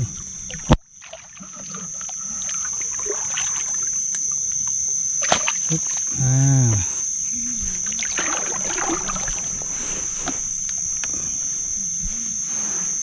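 Insects chirring in a steady high-pitched drone, with a few sharp knocks and a short hum from a person about six seconds in.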